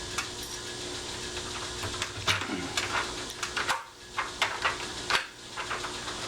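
Irregular clicks and clacks of keys going into and turning a newly fitted Master bump-proof deadbolt, testing it with both keys.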